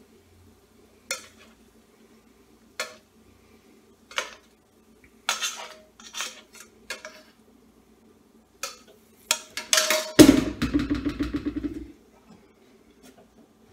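A utensil scraping and tapping against a stainless steel pan as cooked mushrooms are scraped out onto a plate: a series of sharp clinks, coming closer together. About ten seconds in comes a louder, longer clatter lasting a couple of seconds.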